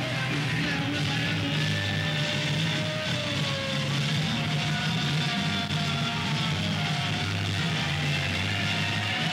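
Live rock band playing at steady full volume: electric guitar and bass guitar with drums, as heard on an audience tape.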